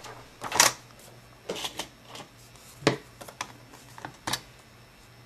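A paper envelope being handled and lined up on a paper trimmer: scattered light clicks and paper rustles, with a sharper click about three seconds in.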